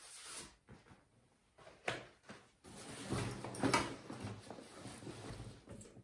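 Light knocks and rustling of things being handled, with a sharp knock about two seconds in and the loudest rustle a little before four seconds.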